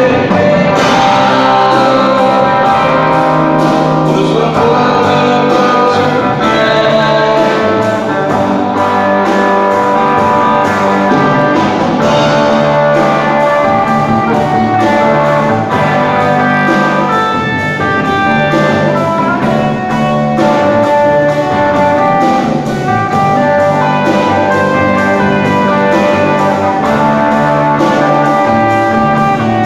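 Live church band playing worship music on electric guitar, bass guitar and drum kit.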